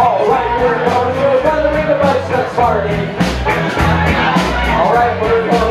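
Live rock band playing: cello, electric bass and drum kit, with a melody line that slides up and down over deep bass notes and a steady cymbal beat about four times a second.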